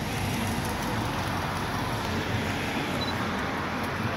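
Steady road-traffic noise, an even hiss and rumble with no distinct events.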